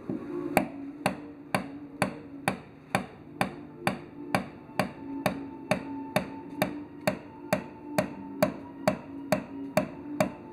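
Wood nails (treenails) being pounded into holes in a wooden ship's hull frames with a hammer: steady blows, about two a second, each with a short ringing note. The note of the blows changes as the wood nails get tighter in their holes.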